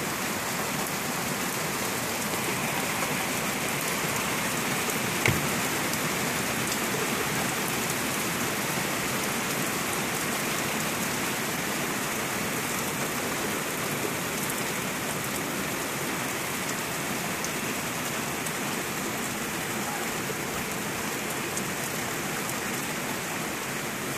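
Heavy downpour: rain falling steadily and evenly, with a single sharp knock about five seconds in.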